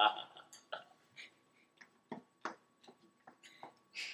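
Quiet room broken by scattered faint clicks and short soft rustles, about a dozen over four seconds, with a faint steady high tone underneath.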